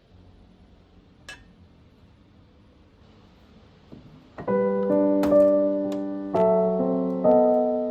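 Faint quiet sounds with a single sharp click about a second in, then piano background music starts a little past halfway, with slow, sustained chords.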